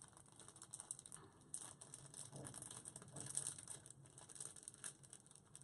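Faint, rapid irregular ticking and crinkling of packaging being handled as someone tries to work it open.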